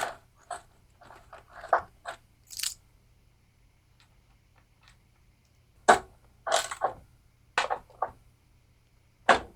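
Small metal nuts being handled and run down by hand onto the studs of a lawnmower engine's recoil starter: scattered light clicks and scrapes, with a quiet stretch in the middle and a louder cluster later on.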